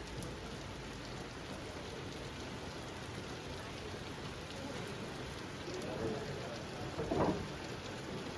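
Heavy rain coming down, a steady hiss, with a brief louder sound about seven seconds in.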